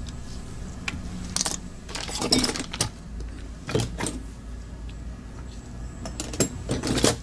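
Scattered light clicks, taps and rattles of a precision screwdriver and the opened plastic mouse shell being handled and set down on a work mat, several short sharp knocks bunched together and a few more near the end.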